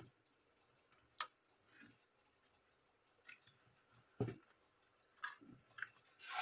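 Scattered small plastic clicks and taps at irregular intervals as a laptop's plastic case clips are pried loose, with a louder knock about four seconds in.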